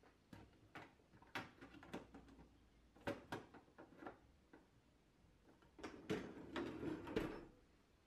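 Dishwasher filters being fitted back into the sump: a series of sharp plastic clicks and knocks. Near the end comes a longer clattering rattle as the wire lower rack is rolled back into the machine.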